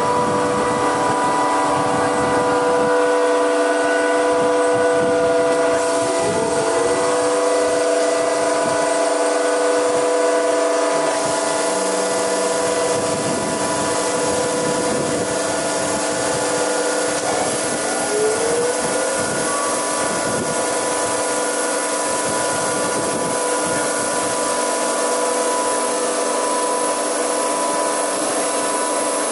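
Weinig four-sided moulder's cutter spindle motors starting up one after another and running with a steady whine of several tones. There are short rising whines about six and eighteen seconds in, and new tones join around twelve and twenty seconds as more motors come on.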